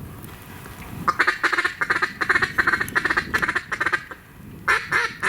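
Mallard-type duck quacking: a fast run of short quacks, about eight a second, lasting about three seconds, then single quacks near the end.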